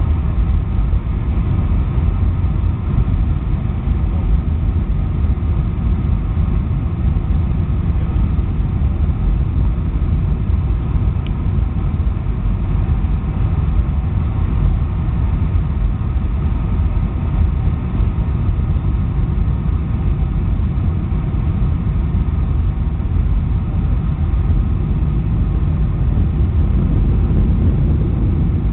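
Steady cabin roar of a Boeing 757-200 descending on approach to land, heard inside the cabin over the wing: a deep, even rumble of engines and airflow with a faint steady whine above it.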